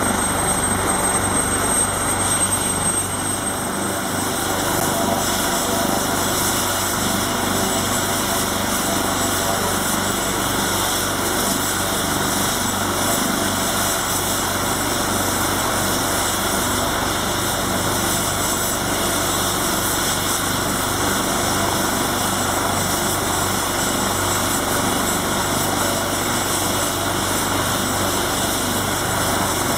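AgustaWestland AW139 helicopter ground-running on its twin turboshaft engines with the main rotor turning: a steady turbine whine and rotor noise at an even level.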